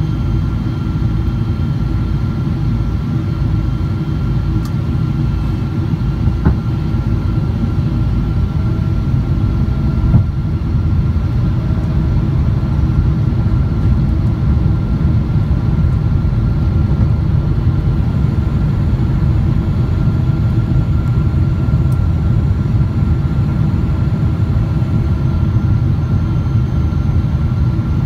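Steady cabin noise inside a Boeing 777-300 descending on approach: a low rumble of airflow and its Rolls-Royce Trent 892 engines, with a faint steady high tone over it.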